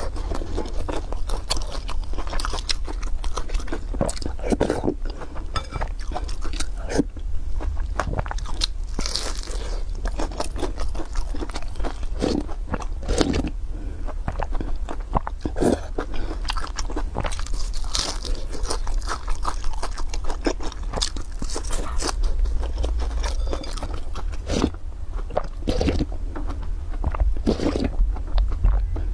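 Close-miked eating: crisp crunching bites and chewing of a fried beef pie, with sips of soup drunk from a glass bowl, in irregular sharp crackles.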